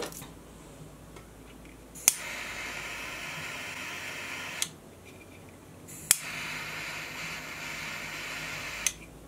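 Butane torch lighter clicked on and hissing steadily for about two and a half seconds, then shut off with a click, twice: the flame is melting the freshly cut ends of the paracord to seal them.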